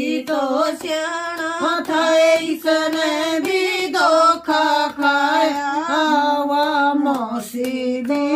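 A woman singing a folk bhajan to Krishna without instruments, with hand claps keeping time.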